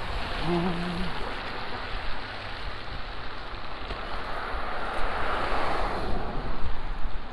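Outdoor street noise in a snowstorm: a continuous rushing hiss of traffic on the wet, slushy road, with wind rumbling on the microphone. The hiss swells about five seconds in as a vehicle passes, and a brief low tone sounds near the start.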